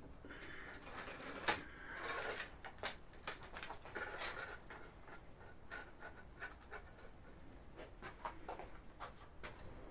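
Track of a scale RC bulldozer model running off the ground on its electric track motor, its links rattling and clicking irregularly with short scraping rushes. The noise comes from the track spinning free without contact with the bottom rollers.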